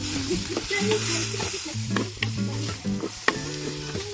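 Chicken pieces sizzling as they are sautéed in a pan, with a few sharp clicks of a utensil against the pan, over background music.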